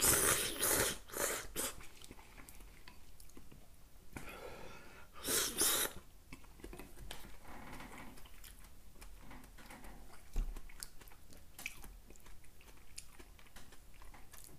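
A man slurping noodles from a bowl of soup: a loud slurp at the start and another about four seconds in, then quieter chewing with small mouth clicks.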